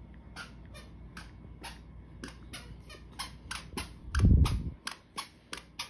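iPhone 13 Pro Max's on-screen keyboard clicking as a password is typed, about four clicks a second. A louder low thump comes about four seconds in.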